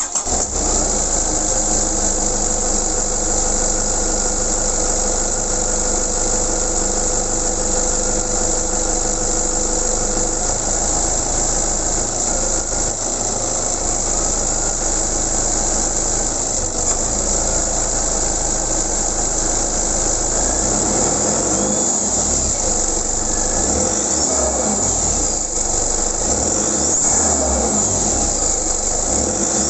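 Stock 2004 Nissan D22 Navara turbo-diesel running: steady for about the first ten seconds, then revving up and down with the turbo flutter of a stock turbo that has no blow-off valve. The flutter is compressor surge as the throttle is lifted.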